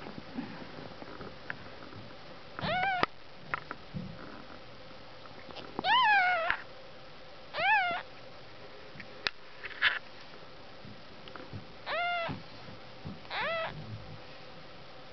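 Newborn kittens mewing: about six short, high-pitched mews, each rising then falling in pitch, the longest and loudest about six seconds in, with a few faint clicks between them.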